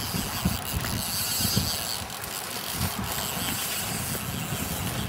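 Fly reel's click-and-pawl drag ratcheting while a hooked barbel is played on the line, with wind buffeting the microphone in low gusty thumps.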